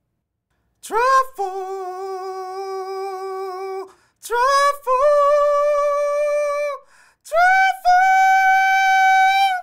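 A man singing the word "travel" a capella in a high voice: three long held notes, each higher than the last, each sliding up into its pitch.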